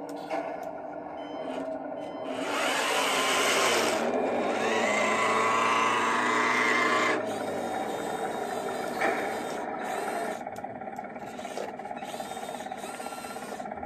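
1:16 RC M5A1 Stuart light tank driving, its electric drive motors and gearboxes whining and its tracks running. It is louder for a few seconds in the middle, with a whine that wavers in pitch. There is a click about nine seconds in.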